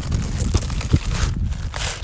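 Footsteps crunching on river gravel, with a few sharp clicks of stones knocking, over a steady low rumble.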